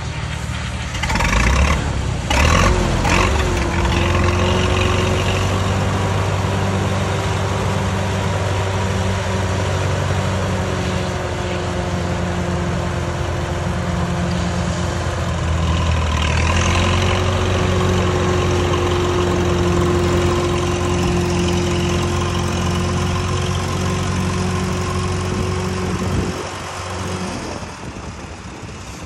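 Case 730 tractor's four-cylinder gas engine running as the tractor drives, picking up about a second in and then steady, with a steady whine over it, easing off near the end.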